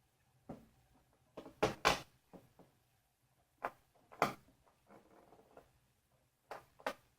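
Sharp clicks and knocks of small screws, washers and tools handled against a panel while a power supply is being screwed in place, about a dozen separate strikes with the loudest pair near two seconds in and a brief scrape around five seconds in.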